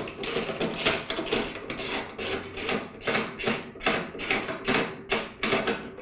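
Socket ratchet wrench on a long extension clicking in quick back-and-forth strokes, about three to four a second, as it loosens a bolt.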